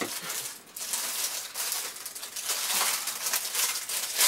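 Paper note cards and envelopes rustling as they are handled and leafed through, with papery crinkling and light shuffling.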